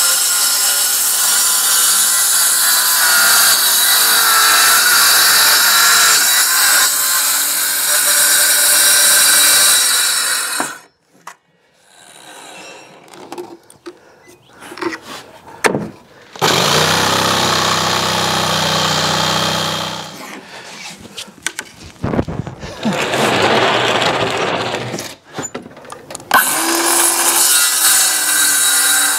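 Cordless circular saw cutting through plywood sheet: a long continuous cut that stops about ten seconds in. After a few knocks and handling sounds, the saw runs again in shorter cuts.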